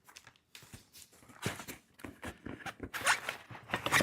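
Wooden beehive frame pieces and their packing being handled and pulled out of a box: a string of irregular light knocks and clicks with short rustling bursts, busier near the end.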